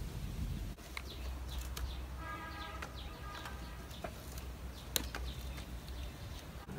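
Dry coconut husks knocking and rustling as they are loaded by hand into a clay stove, with a few sharp clicks. A bird calls briefly about two seconds in, over a low rumble.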